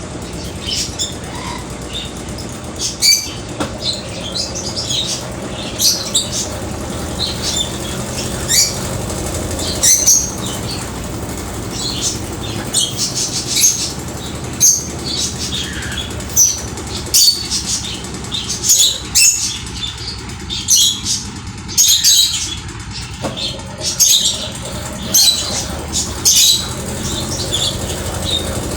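Brastemp Ative 11 kg washing machine running its spin program: a steady motor hum with many short, irregular high-pitched swishes.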